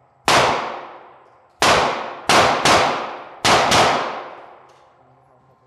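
Six gunshots in an uneven string, in pairs toward the end, each with a long echoing tail.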